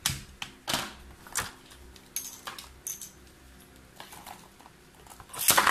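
Hard plastic clicks and rattles of a Beyblade being fitted onto a red ripcord launcher. Near the end comes a short, loud burst as the toothed ripcord is pulled to launch the Beyblade into a plastic stadium.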